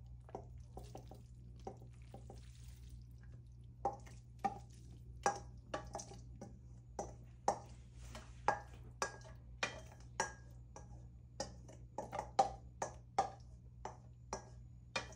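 Wooden spoon knocking and scraping cooked egg noodles out of a metal colander into a frying pan: after some soft scraping, a run of sharp clacks starts about four seconds in, roughly one or two a second, each with a brief metallic ring. A low steady hum runs underneath.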